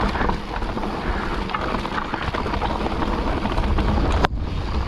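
Wind buffeting a helmet-mounted action camera's microphone while a mountain bike rolls fast down a dirt and rock trail, with tyres crunching and the bike rattling in an unbroken loud rush. There is a brief break a little past four seconds.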